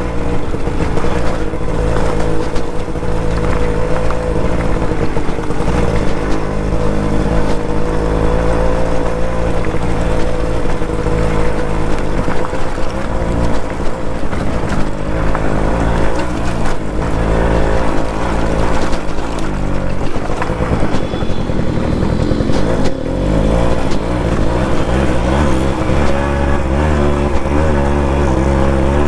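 Suzuki Max 100's two-stroke single-cylinder engine running while the bike is ridden over a rough dirt track, its pitch rising and falling as the throttle changes.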